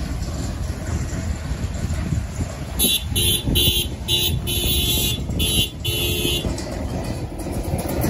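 A vehicle driving across a grass field with a low, steady rumble. From about three to six seconds in comes a run of about seven short toots.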